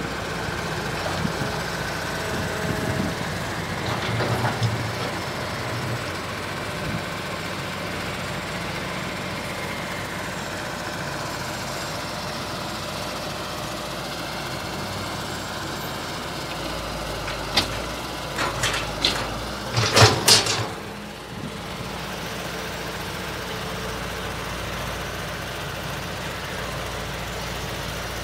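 An engine running steadily at idle, with a short cluster of sharp knocks or clanks about two-thirds of the way through.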